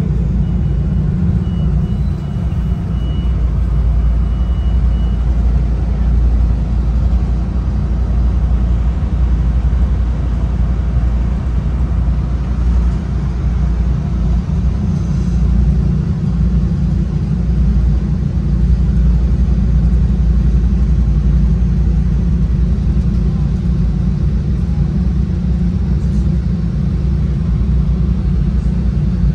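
Steady low rumble of a Metra bilevel commuter train car running at speed, heard from inside the passenger car. A faint high thin tone sounds over it for the first few seconds.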